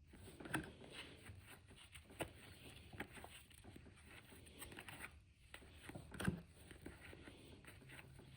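Trading cards being handled and sorted: faint sliding and rustling of card stock, with a few sharp taps as cards are set down, the loudest about six seconds in.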